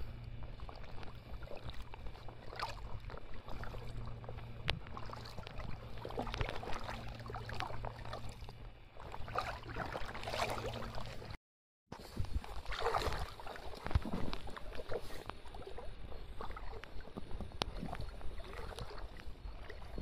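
Water sloshing and splashing irregularly around golden retrievers wading through a shallow river. A steady low hum runs under the first half, and the sound breaks off briefly about halfway.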